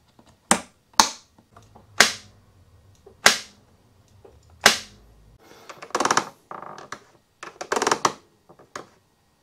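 A BMW GS motorcycle's fuel filler cap being snapped open and shut over and over, giving a string of sharp clacks roughly a second apart. Near the end come two longer, rattling clatters.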